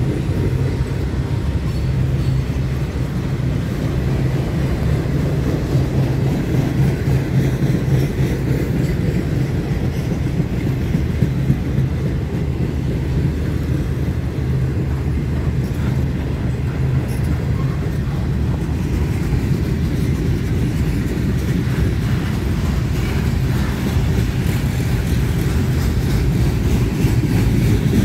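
Freight train cars rolling past at steady speed: a continuous low rumble of steel wheels on the rails.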